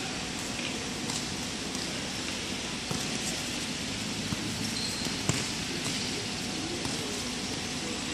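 Futsal ball being kicked and bouncing on an indoor court: a handful of sharp knocks over a steady din of players' feet and hall noise.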